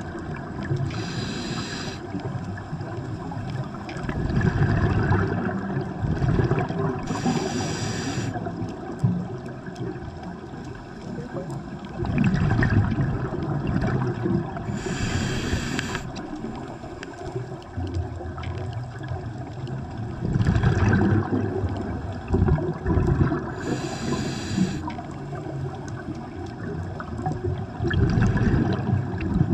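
Underwater sound of a scuba diver breathing through a regulator: about four hissing inhalations, each about a second long, alternating with longer spells of gurgling exhaled bubbles.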